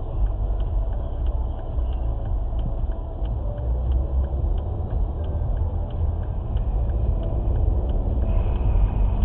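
Steady low rumble of a car driving, engine and tyre noise heard from inside the cabin through a dashcam's microphone.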